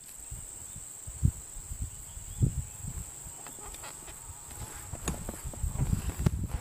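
A steady high-pitched insect trill, from crickets, with several dull low bumps and a few ticks from the rifle being handled.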